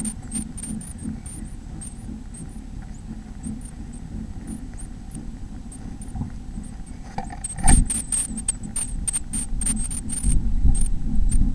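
Nestling birds in a nest box cheeping: short, very high-pitched squeaks that become much busier about two-thirds of the way through. With them come knocks and scratches of movement against the box, one louder knock as the cheeping picks up, and a low rumble.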